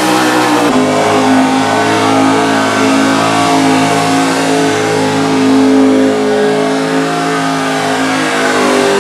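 Mud truck's engine revving hard and held at high revs while the truck churns through deep mud, its note climbing and settling under a second in, then staying nearly steady.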